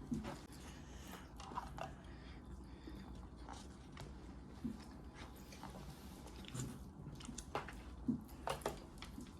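Faint sounds of people chewing soft pancakes, with scattered small clicks and taps at irregular moments.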